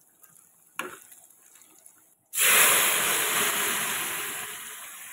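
Liquid poured from a pot into a pan of yellow peas: a loud rushing hiss that starts suddenly about two seconds in and slowly fades. A short clatter comes about a second in.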